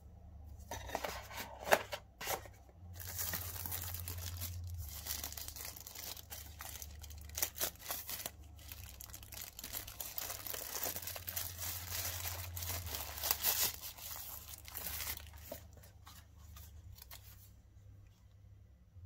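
Packaging handled: paper and cardboard rustle with one sharp tap about two seconds in, then a thin plastic bag crinkles and rustles densely as it is worked off a computer mouse, thinning to light handling near the end. A steady low hum sits underneath.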